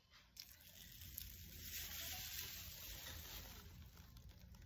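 Paper napkin around an acarajé rustling and crinkling as it is handled, starting about half a second in.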